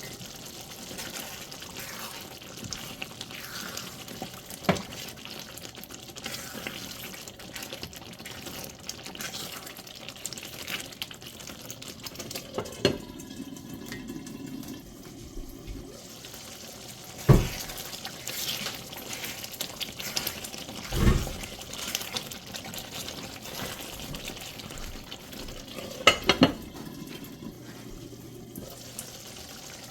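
Thick curry gravy bubbling steadily as it simmers and thickens uncovered in a glass-ceramic Corningware pot. Several sharp knocks of a spoon against the pot as it is stirred, two of them close together near the end.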